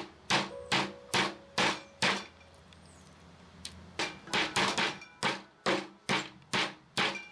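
Square-headed metal meat tenderizer mallet pounding a raw pork cutlet on a wooden cutting board to tenderize it. A run of strokes about two or three a second stops for about two seconds midway, then resumes faster, about three a second.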